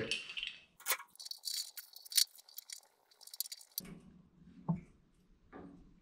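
Steel steering parts and bolts clinking and rattling as a go-kart steering knuckle with its tie-rod arm is fitted back onto the front A-arms: a scatter of light metallic clinks, then a couple of duller knocks near the end.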